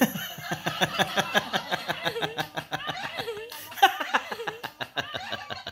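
Laughter: quick, repeated ha-ha pulses of voice that keep going throughout.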